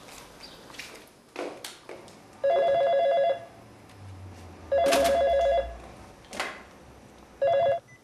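Telephone ringing with a trilling electronic ring: three rings about two seconds apart, the third one shorter.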